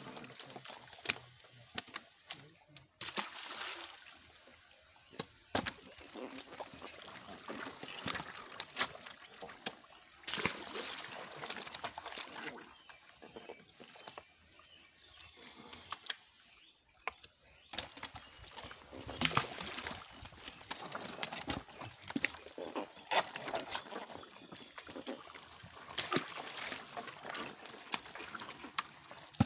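Live catfish thrashing in a net in a basin of water as hands grab at them: irregular sloshing and splashing with sharp wet slaps, in uneven bursts with a couple of quieter lulls.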